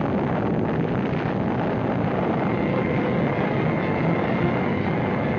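Atomic test explosion on an old newsreel soundtrack: a loud, steady, unbroken rumble of dense noise.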